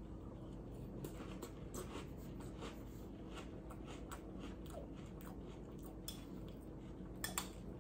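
A person chewing a mouthful of puffed cereal with marshmallows in milk: a steady run of faint crunches. Near the end, a couple of louder clicks as the spoon knocks against the bowl.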